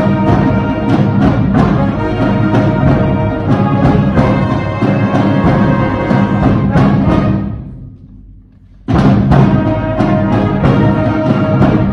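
School symphonic band playing a loud passage for full winds with steady drum strokes. About seven seconds in the band releases and the sound dies away for about a second, then the whole band comes back in at once at full volume.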